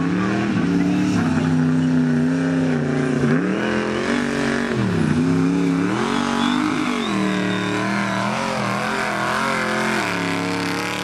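Mega mud truck's engine revving hard under throttle, its pitch dropping and climbing again several times as the driver lifts off and gets back on the gas.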